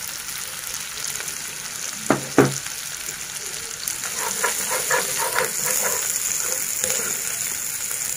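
Diced carrots, onion and green chillies sizzling in hot oil in a wok, with a steady hiss. Two sharp knocks come about two seconds in. From about four seconds in, a spatula stirs and scrapes through the vegetables in quick repeated strokes.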